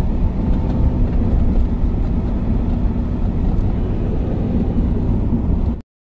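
Maruti Suzuki Alto car driving: steady engine and road rumble, heaviest in the low end, with faint steady engine tones. It cuts off suddenly near the end.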